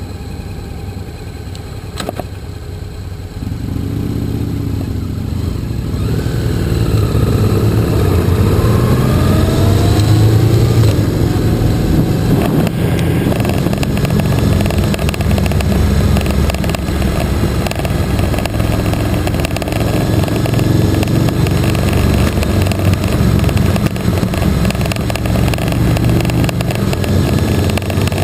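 Motorcycle engine heard from on board the bike: quieter at first, it picks up a few seconds in and climbs in pitch through the gears, then runs steadily at road speed with wind noise.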